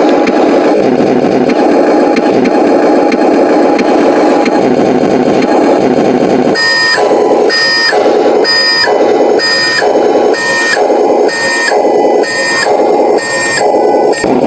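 RC truck's electronic sound module playing a loud, harsh engine sound; about halfway through, a steady beeping starts, repeating a little faster than once a second over the engine sound, like a reversing alarm.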